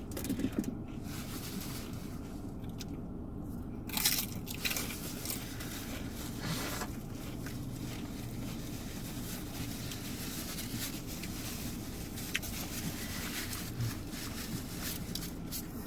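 A person chewing and biting food, with a few short crunches or rustles about half a second, four seconds and six and a half seconds in, over a steady low hum.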